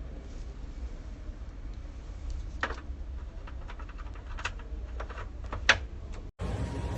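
Scattered light clicks and taps, three of them louder, over a low steady rumble. Near the end it cuts off abruptly and a different, hissier background takes over.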